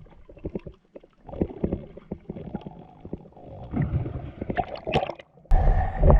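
Underwater sound of a diver: scattered clicks, crackles and bubbling gurgles. About five and a half seconds in it changes abruptly to a loud, steady rumble and hiss of wind and water as the camera breaks the surface.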